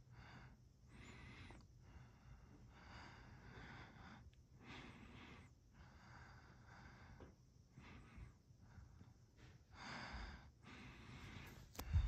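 Harbor Breeze Oakmont ceiling fan running quietly with a faint steady low hum, under soft breath sounds that swell and fade every second or two. A short click comes right at the end.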